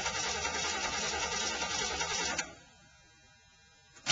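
Starter cranking the cold 1980 Ford F-150's 351M V8 after it has sat about three weeks, without the engine catching. The cranking stops about two and a half seconds in, and a sharp click near the end sets it cranking again.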